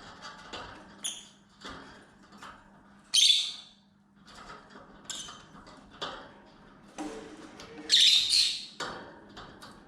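Lovebirds calling, with a loud shrill squawk about three seconds in and a longer one around eight seconds, among softer chirps. Light clicking and scratching runs between the calls.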